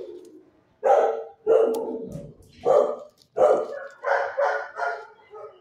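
A dog barking repeatedly, a quick run of about eight barks starting about a second in.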